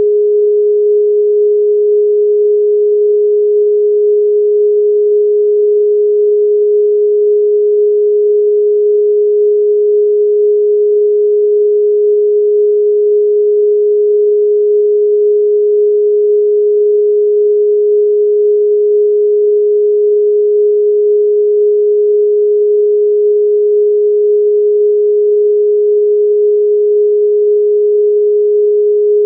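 A single steady sine-wave tone at about 400 Hz, held without any change in pitch or loudness: a continuous 'protection frequency' tone for meditation.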